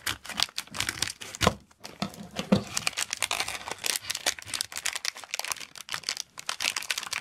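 Scissors cutting open a foil-lined plastic dog-treat pouch, then the pouch crinkling and crackling as fingers pull it open and reach inside.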